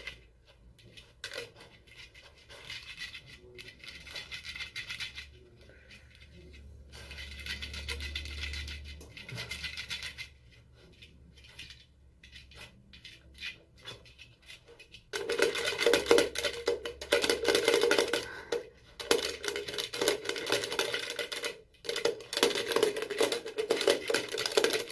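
Plastic rocker light switch clicking repeatedly as an Arctic fox's paws and nose work it, with claws scratching against the switch and tiled wall. About fifteen seconds in, a louder, denser sound joins and runs on.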